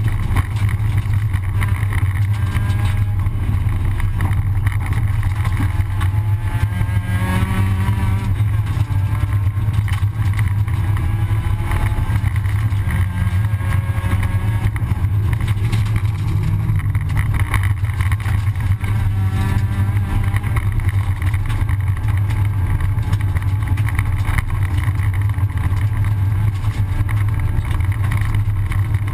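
Rally car engine running hard, heard from inside the cockpit, with revs rising and falling as it changes gear along a gravel stage.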